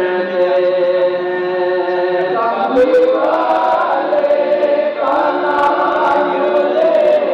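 A crowd of devotees singing the devotional salaam together in unison, in long held notes. The melody breaks into a new phrase about two and a half seconds in and again about five seconds in.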